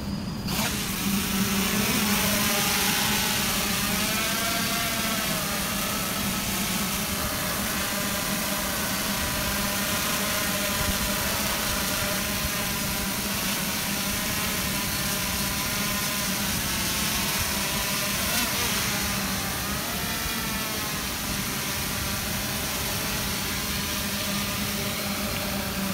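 Multirotor drone's electric motors and propellers in flight: a steady buzzing hum with a whine above it whose pitch wavers up and down as the motor speeds shift.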